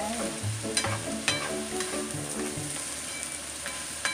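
Diced onion and sausage sizzling in a frying pan while a spatula stirs through them, with sharp clicks as it scrapes and taps the pan. Soft background music plays under it for the first couple of seconds.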